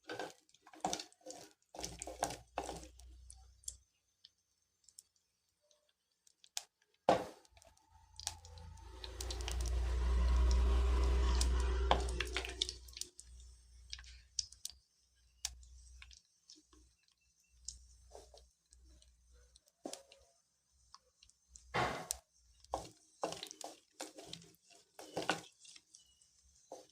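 Small onions and curry leaves frying in hot oil just after the mustard seeds have spluttered: scattered crackles and clicks, with a louder rushing swell lasting a few seconds around the middle.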